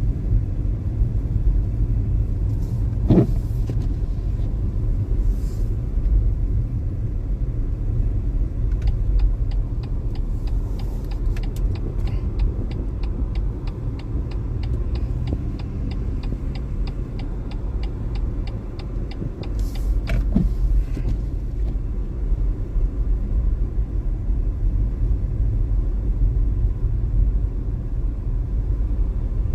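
Car being driven, heard from inside the cabin: a steady low rumble of engine and tyres. A regular ticking, about four a second, runs for about ten seconds in the middle, and there are two brief squeaks, one about three seconds in and one about twenty seconds in.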